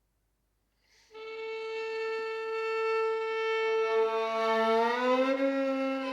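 Experimental music for bowed strings: after about a second of silence a long held violin note enters, and near the middle a lower note joins as both slide slowly upward in pitch before holding steady.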